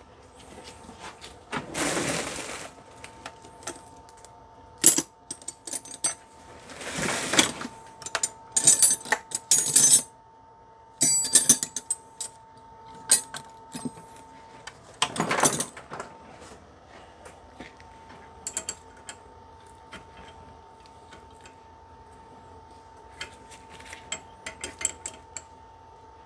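Clinks and taps of hand tools and small metal brake-caliper parts being picked up, handled and set down, as a new bleeder screw is fitted to the caliper. There are a few second-long rustles about two, seven and fifteen seconds in, and a faint steady tone underneath.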